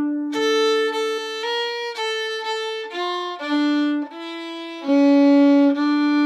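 Solo fiddle playing a slow, bowed folk-dance melody in long, smoothly joined notes, often with two strings sounding together: a steady lower note held under the moving tune.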